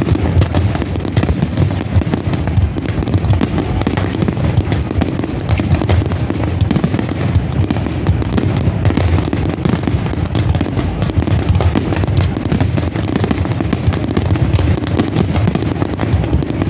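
Fireworks display: a rapid barrage of aerial shells and comets launching and bursting, the booms and cracks overlapping with no break.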